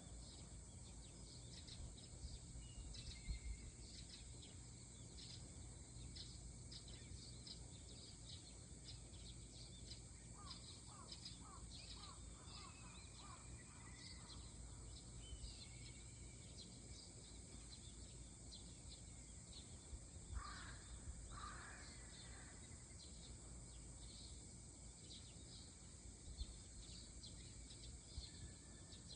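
Faint dawn birdsong: many small birds chirping steadily over a low background hum of harbour ambience. About two-thirds of the way through, two louder, harsher bird calls stand out.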